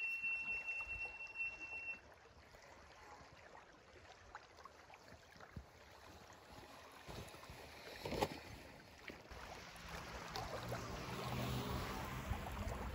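Squeaky brakes on a fat-tire e-bike squealing as it is walked down a slope on the brakes: one steady high-pitched tone that stops about two seconds in. A sharp knock comes about eight seconds in, and near the end a rising rushing noise builds as the bike is ridden off along the sand.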